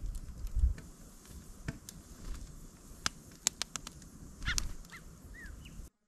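Canada jays giving a few short, curving whistled calls near the end, over scattered sharp clicks and a low rumble. The sound cuts off abruptly just before the end.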